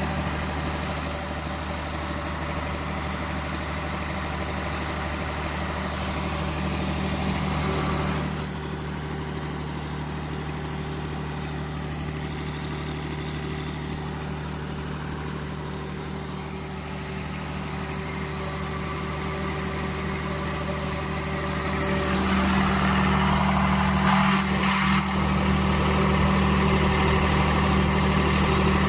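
Cummins diesel generator set running steadily with an even engine drone. It gets a little quieter about a third of the way in and louder again near the end.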